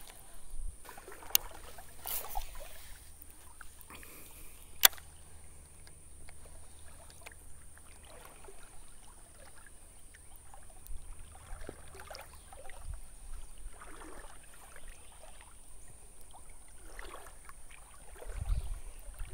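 Creek water sloshing and swishing around a wading angler's legs, with two sharp clicks about a second and a half and five seconds in.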